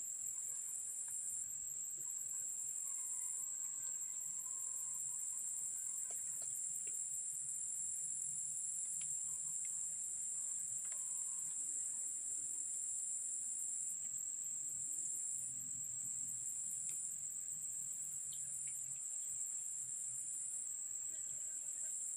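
Insect chorus: a steady high-pitched trill, with a second pulsing trill cutting in and out every few seconds, and a few faint clicks.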